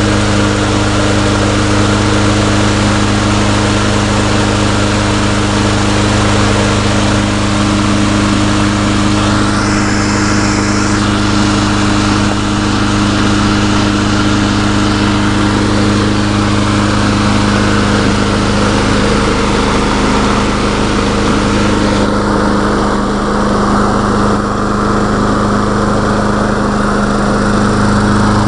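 Briggs & Stratton Quantum single-cylinder engine on a walk-behind lawn mower running steadily. Its governor linkage is not working right: a stick jammed in the linkage is setting the engine's speed.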